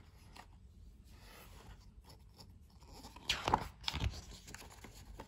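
Picture-book page being turned by hand: faint paper rustles, then a louder swish and flap of the page about three and a half seconds in.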